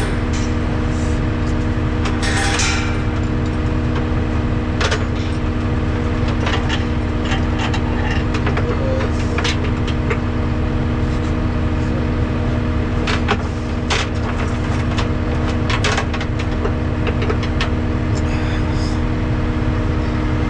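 Heavy diesel truck engine running steadily at a constant speed, with a deep rumble and occasional light clicks and rattles.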